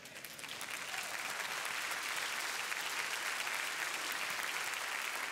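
Church congregation and choir applauding, the clapping building up over the first second and then holding steady.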